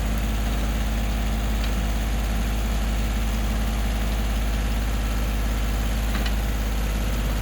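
Tractor engine idling steadily, a deep even drone, with a couple of faint clicks.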